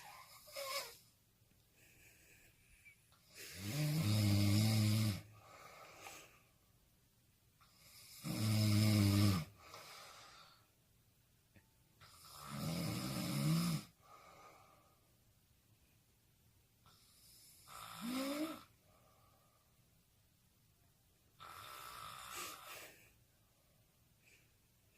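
A person snoring in slow rhythm, five snores about four to five seconds apart. The first three are the loudest, with a deep rattling tone; the last two are shorter and fainter, the final one mostly breathy.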